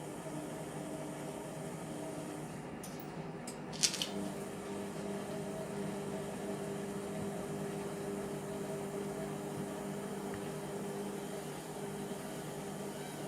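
Indesit MTWC71252WUK washing machine running mid-wash on a cotton cycle, a steady motor hum over the drum. About four seconds in there is a sharp click, and the hum then settles to a lower pitch.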